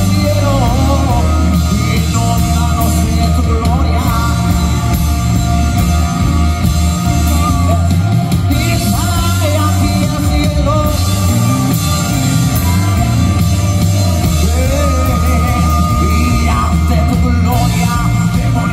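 Live band with drum kit, congas, guitar and keyboard playing a Spanish-language worship song, loud and steady, with a young male singer's voice over it through the PA.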